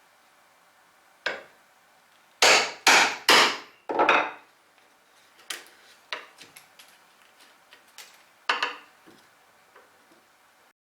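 A hammer striking a mortise chisel as it is driven into wood to chop a mortise. There is one knock, then three hard blows in quick succession and another strike, followed by scattered lighter knocks and taps as the chisel is worked in the cut.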